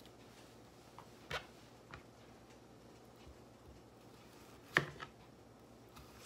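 Kitchen knife slicing a firm peeled green tomato and tapping down onto a plastic cutting board: a few scattered sharp taps, the loudest nearly five seconds in.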